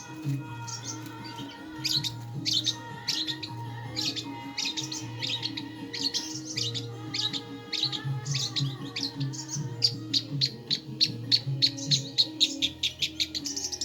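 Long-tailed shrike (cendet) singing: a string of short, sharp chirps and chattering notes that come faster toward the end, over background music with low held notes.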